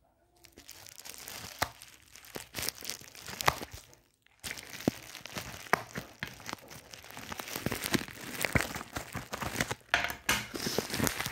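Plastic parcel wrapping crinkling and tearing as hands work at opening it, with many sharp crackles and a brief lull about four seconds in.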